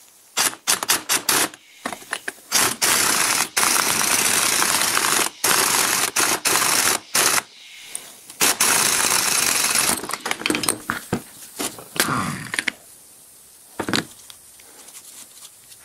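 Cordless impact wrench hammering in repeated bursts of one to a few seconds as it drives the forcing screw of a three-jaw gear puller, pulling the pulley off an old electric motor's shaft. The hammering stops about twelve and a half seconds in.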